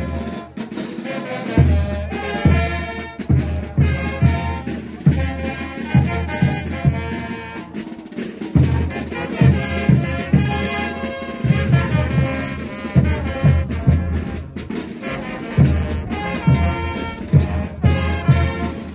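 Bolivian brass band playing carnival dance music for ch'uta dancers: trumpets and other brass over a steady bass-drum beat. The drums drop out briefly about eight seconds in.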